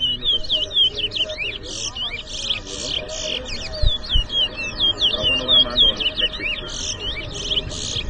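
Caged towa-towa (chestnut-bellied seed finch) singing competition song: a rapid, unbroken run of sweeping whistled notes mixed with buzzier phrases.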